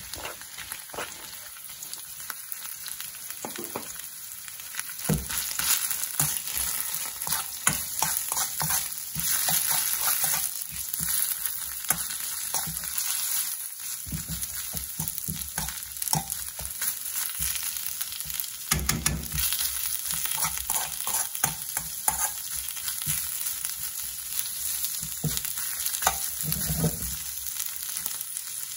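Sliced onions sizzling in hot oil in a black metal frying pan, stirred with a metal spoon that scrapes and clicks against the pan. The sizzle gets louder about five seconds in.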